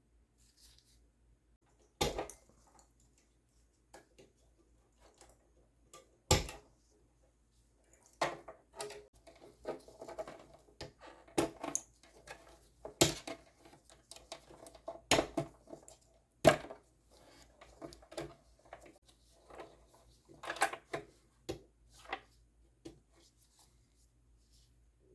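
Espresso machine parts being handled and taken apart: irregular sharp clicks and knocks of hard parts and tools, with rattling and scraping between them, busiest in the middle.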